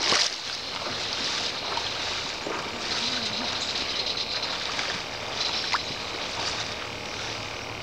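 A hooked steelhead thrashes and splashes at the water's surface once, right at the start, followed by a steady high hiss of water.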